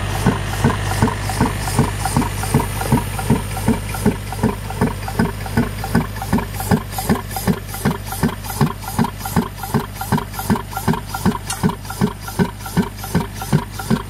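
Pneumatic soil-piercing mole ("torpedo") hammering steadily at about three blows a second, over the steady low hum of a portable air compressor's engine.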